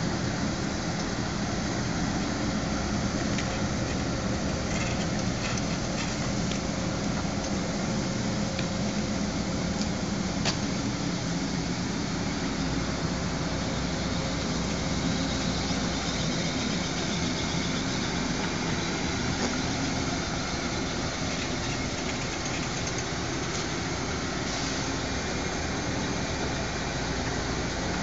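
Forklift engine running steadily while the forklift drives and manoeuvres, with a single sharp click about ten seconds in.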